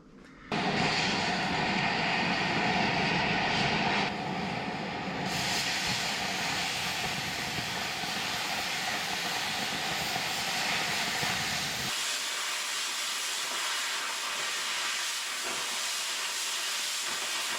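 Oxyacetylene cutting torch hissing steadily as it burns through thick steel plate. The hiss gets quieter about four seconds in and thins, losing its low rumble, about twelve seconds in.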